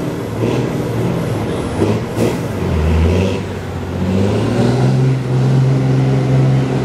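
Diesel semi-truck tractor engines idling and revving at a drag-race start line. From about four seconds in they hold a raised, steady rev. There is a brief sharp noise about two seconds in.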